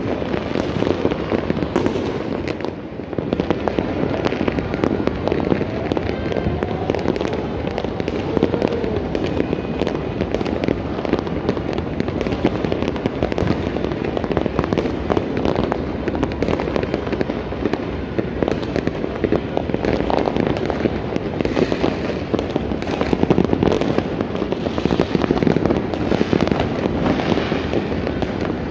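Citywide New Year fireworks and firecrackers going off all around without a break: a steady din of many overlapping distant bangs, with frequent sharp cracks and pops on top.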